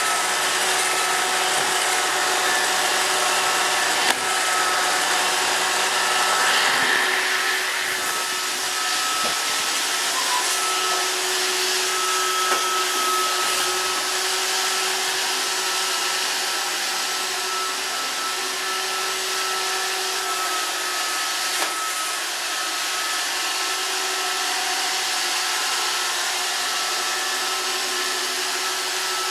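Roomba robot vacuum running steadily: an even whirring of its motors with a steady whine, broken by a few brief knocks.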